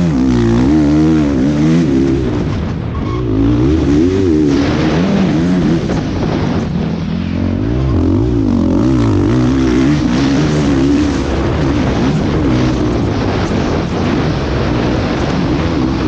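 Motocross dirt bike engine at race pace, heard from the rider's helmet, its pitch rising and falling over and over as it revs through the gears around the track.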